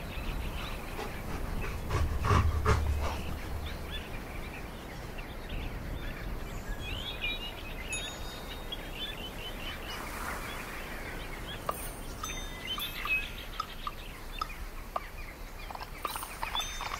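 Small birds chirping now and then over a steady outdoor background hiss, with a low rumble about two seconds in.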